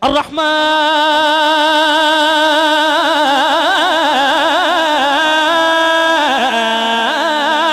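A man singing a long, drawn-out unaccompanied vocal line through a microphone and loudspeakers. He holds steady notes, breaks into quick wavering runs in the middle and drops in pitch near the end. It opens a sung recitation of the names of Allah.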